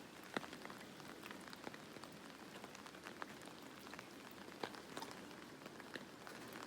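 Steady rain hissing, with many separate raindrops ticking sharply close by.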